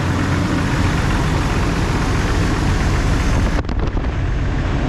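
1999 Jeep Grand Cherokee engine idling steadily, with its cooling system freshly refilled after a water pump and thermostat replacement. There is a brief break about three and a half seconds in, after which the high hiss is fainter.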